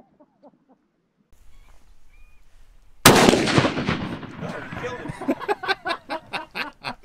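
A single loud shot from a large-calibre Desert Tech long-range rifle about three seconds in, a sharp crack whose report trails off over more than a second. A quick string of shorter sharp sounds follows.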